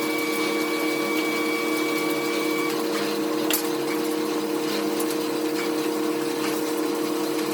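A steady machine hum, with a thin high whine that stops about two and a half seconds in and a few scattered clicks.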